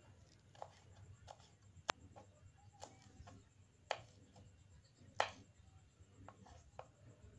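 Kitchen knife slicing crushed garlic cloves on a wooden cutting board: faint, irregular knocks of the blade striking the board, about one a second.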